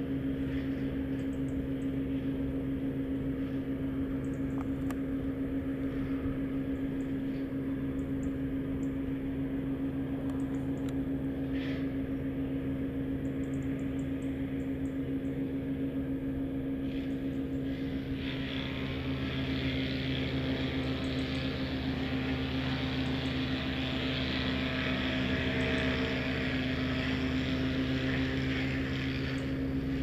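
Steady low mechanical hum at an unchanging pitch, like a motor running. About eighteen seconds in, a louder hiss swells up over it and holds.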